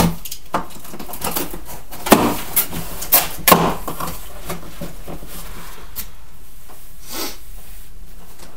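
Knocks and thumps of a large cardboard TV carton being handled, about half a dozen in the first four seconds, the loudest about two seconds in, then a couple of fainter ones later.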